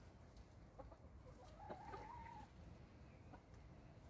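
Domestic hens clucking faintly, with one drawn-out call about two seconds in.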